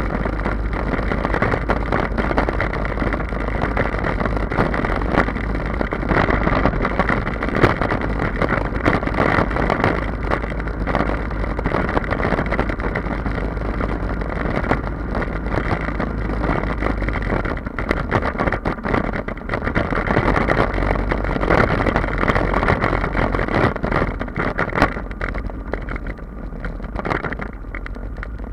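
Royal Enfield Himalayan's single-cylinder engine running steadily at cruising speed through an Akrapovic aftermarket exhaust with the dB killer removed, mixed with wind rushing over the microphone.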